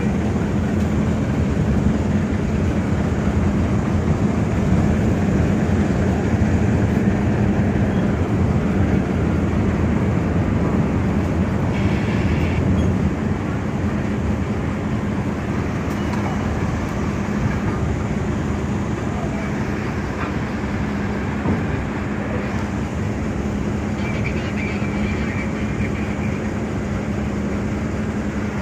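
Ship's engine running, a steady drone with a constant hum under it, easing slightly about halfway through.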